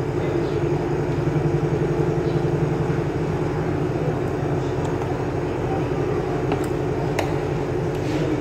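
A steady mechanical hum, like a motor or fan running, with a couple of faint clicks near the end.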